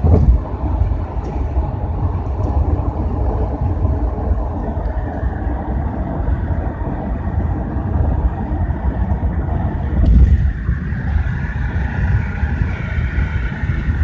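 Car driving at road speed, heard from inside the cabin: a steady low rumble of road and engine noise, with louder surges at the start and again about ten seconds in.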